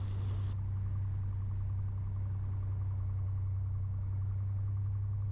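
Cessna TR182's turbocharged six-cylinder engine running at low power with a steady drone, heard from inside the cabin, as the plane lines up on the runway centerline before takeoff power is applied.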